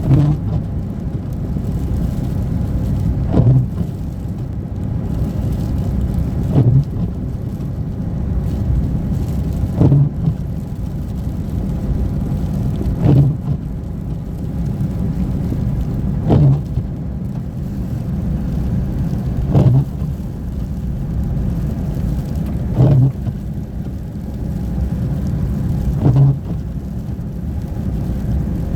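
Steady low rumble of a car on the move, with a short low thump repeating evenly about every three seconds.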